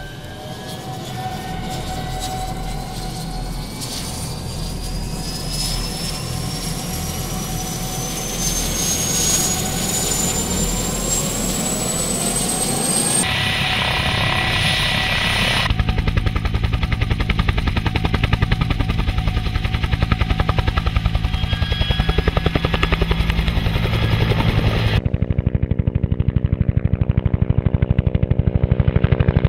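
Helicopter turbine and rotors: a whine rising steadily in pitch as the engine spools up for about 13 seconds, then, after a few abrupt cuts, a fast, even rotor beat.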